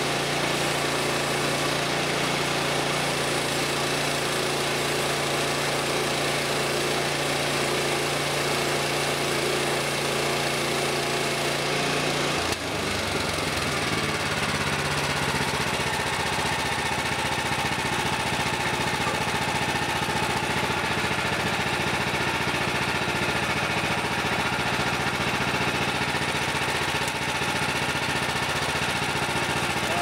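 The gas engine of a Woodland Mills HM130 Max portable bandsaw mill running steadily while the band blade saws through an oak log. The engine note changes abruptly about twelve seconds in, then runs steady again.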